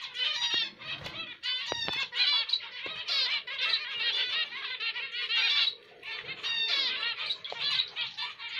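Zebra finches calling and chirping in a cage, many short calls overlapping almost without a break, with a short lull just before six seconds in.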